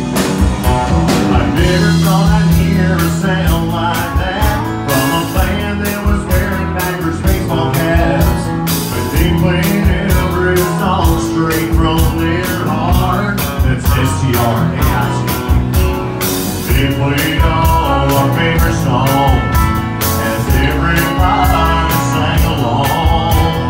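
Live country-rock band playing at full volume, with a drum kit keeping a steady beat under a male lead singer on a microphone.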